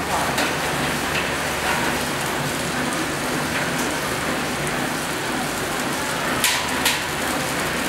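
Eggs and noodles sizzling steadily in a frying pan on a gas burner, with two sharp clicks about six and a half seconds in.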